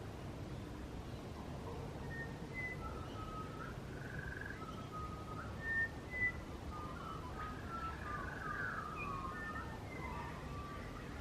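Birds singing: a series of clear whistled notes and short gliding, warbling phrases that get busier in the second half, over a low steady background rumble. Two brief louder bumps come about halfway through.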